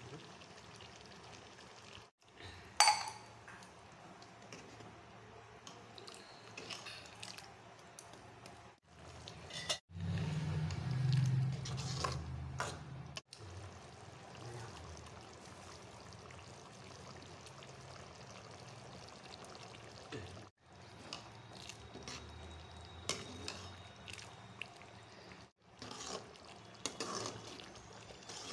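Steel ladle stirring thin tomato gravy in an aluminium kadhai: liquid sloshing and metal scraping and clinking on the pan, with one sharp clink about three seconds in. A low hum runs for a few seconds near the middle, and the sound is broken by several brief silent gaps.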